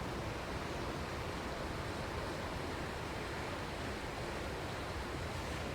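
River water rushing steadily over rocks, an even, unbroken noise.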